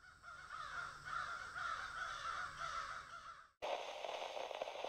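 Harsh bird calls overlapping one another, a cawing sound effect, which cut off abruptly about three and a half seconds in and give way to a steady burst of static-like hiss.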